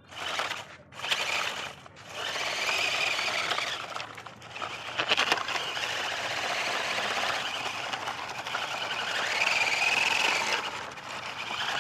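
Plastic toy tractor and loaded trailer rolling over dry dirt, its wheels scraping and rattling, with a higher squeal that swells and fades near the end.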